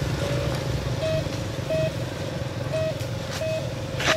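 Radio-controlled toy truck running, its motor and gears making a steady low drone, with a short beep repeating in pairs. A sharp knock near the end.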